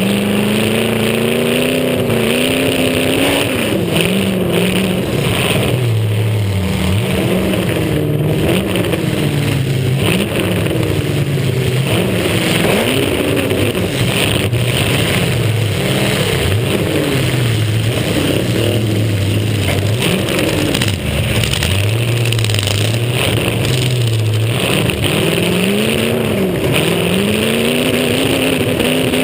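Demolition derby car's engine revving up and down over and over as the car accelerates and backs off, heard from a camera mounted on its roof.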